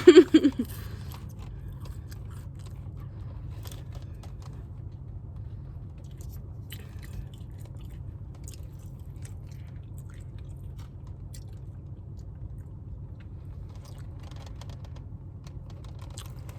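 A person chewing food close to the microphone, with faint scattered crunches and mouth clicks over a steady low background hum.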